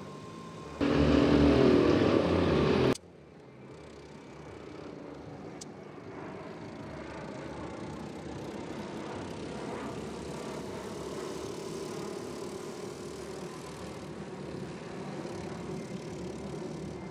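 Go-kart engine heard across the track as a steady drone that slowly grows louder while the kart comes round. About a second in, a much louder sound breaks in for two seconds and cuts off abruptly.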